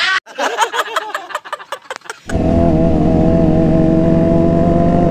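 A brief jumble of a voice and knocking from an inserted meme clip, then, about two seconds in, a sport motorcycle's engine suddenly comes in loud and steady at cruising speed, its pitch edging slightly upward, heard from the rider's seat.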